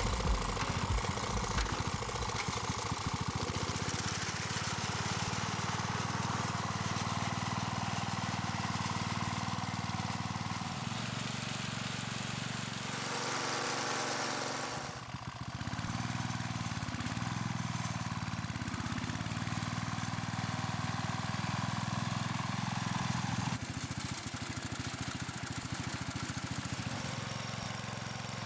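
A farm machine's engine running steadily, its pitch wavering a few times after a brief drop about halfway.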